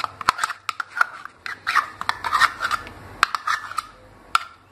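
A metal spoon scraping butter out of a plastic bowl onto a plate: a quick run of short scrapes and sharp taps.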